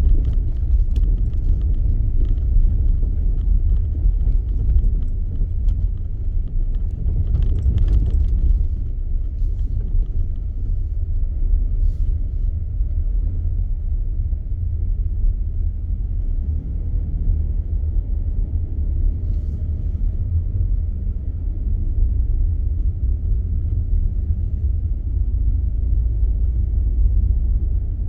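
Car driving on a snowy road: a steady low rumble of tyres and engine, with a few faint ticks in the first eight seconds.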